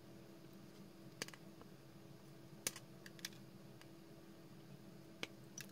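Small flush cutters snipping the wire leads of soldered components on a circuit board: a handful of faint, sharp clicks spread over a few seconds.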